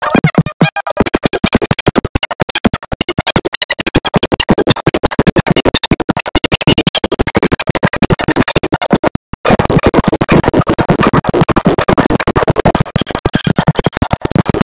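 Background electronic music with a fast, choppy beat, cutting out for a moment about nine seconds in.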